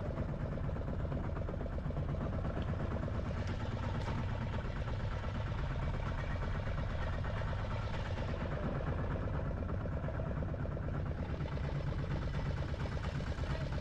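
A fishing boat's engine running steadily, a constant low hum with no change in pitch.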